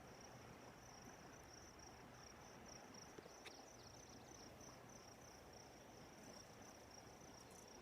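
Faint insect chirping: a steady high-pitched call repeating in quick, even pulses over a quiet outdoor background.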